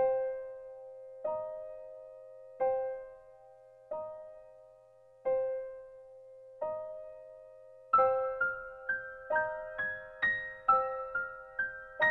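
Background keyboard music: a single note struck over and over about every second and a half, joined about eight seconds in by a quicker melody of about two notes a second.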